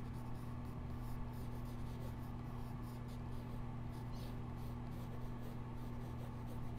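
Graphite pencil scratching across sketchbook paper in many short, quick strokes as feathered wings are sketched. A steady low electrical hum runs underneath.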